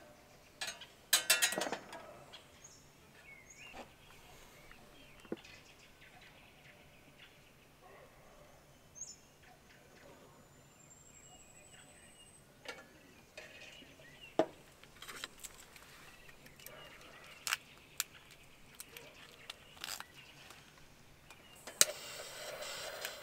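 Scattered clicks, knocks and brief rustles, with a faint high whistle rising slowly near the middle.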